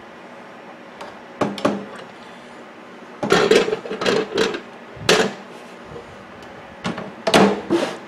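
Knocks and clattering bumps from handling the opened microwave oven's metal cabinet on a wooden bench, in four short clusters.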